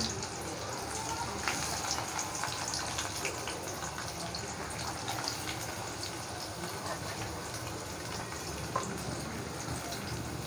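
Sliced onions just added to hot oil in a kadai, sizzling with a steady hiss and scattered small crackles.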